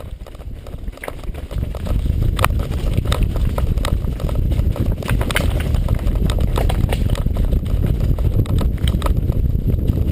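Wind rumbling on the camera microphone, with many irregular sharp clicks and knocks of movement down a rough trail.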